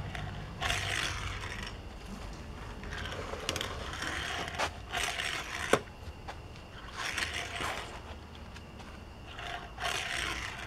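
Hot Wheels Forward Force die-cast toy car pushed back and forth across a wooden table, its plastic wheels rolling with a scraping rattle in about five short runs roughly two seconds apart, with one sharp click near the middle. The rattle is a cheap-sounding wheel noise, which the owner likens to a Maisto car.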